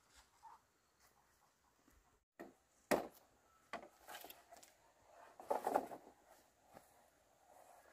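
Long bamboo poles knocking and scraping against one another and the ground as they are dragged and lifted: a sharp hollow knock about three seconds in is the loudest, with a cluster of clattering knocks a little past the middle.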